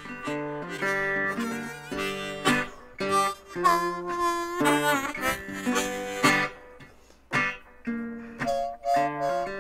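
Blues slide guitar on a resonator guitar: picked notes with a metal slide gliding between pitches and sustaining long notes, in phrases separated by short pauses.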